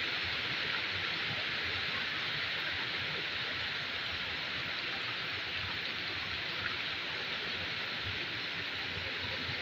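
Steady rush of falling water from a small jungle waterfall and its stream.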